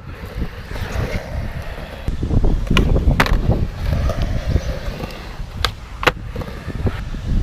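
Skateboard wheels rolling on concrete with a low rumble, buffeted by wind on the microphone. Sharp clacks of the board, two close together about three seconds in and two more about six seconds in.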